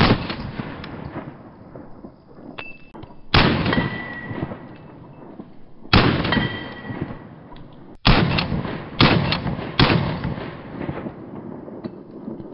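A Staccato XC 9mm pistol with a compensator firing single shots. At first they come a few seconds apart, then several follow in quicker succession. Each sharp crack is followed by a long fading echo.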